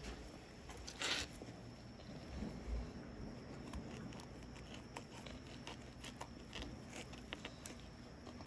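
Faint handling noises: a brief rustle about a second in, a few soft low thuds, and scattered light clicks as gloved hands and a jacket sleeve move over the iguana carcass and the plastic board.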